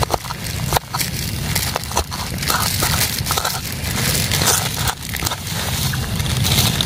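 Irregular crunching and knocking strokes of food being crushed by hand during cooking preparation.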